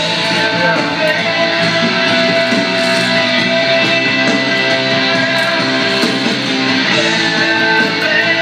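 Guitar-led music playing steadily, without a break.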